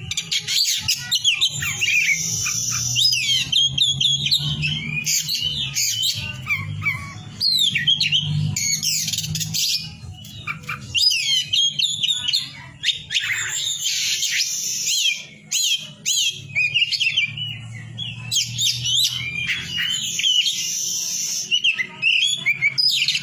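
Oriental magpie-robin (kacer poci) singing a long, varied song of rapid whistles and chirps, broken by brief pauses, over a steady low hum.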